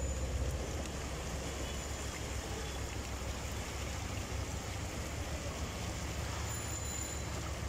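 Floodwater sloshing and rushing steadily around a vehicle wading through a flooded street, over a constant low rumble.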